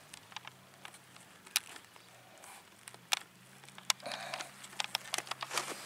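Faint handling noises: a few scattered light clicks and rustles, over a faint steady low hum.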